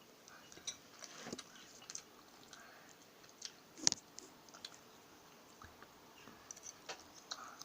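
Faint scattered clicks and taps of small objects being handled, with one sharper knock about four seconds in.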